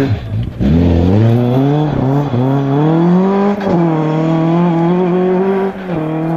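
Ford Escort Mk2 rally car accelerating hard away on a gravel stage. There is a quick rise and fall in engine note at the start, then the engine climbs through the gears, its note dropping briefly at each of several upshifts.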